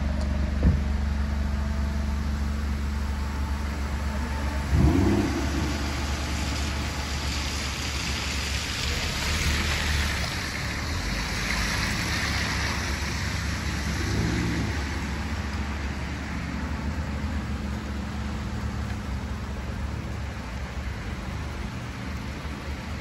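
Alfa Romeo Stelvio Quadrifoglio's 2.9-litre twin-turbo V6 idling with a steady low hum, its pitch rising and falling briefly about five seconds in and again, more faintly, about fourteen seconds in.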